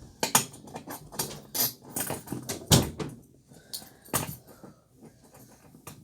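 Steel handcuffs and leg shackles being put on: a quick series of metallic clicks and chain rattles, with one louder clack near the middle.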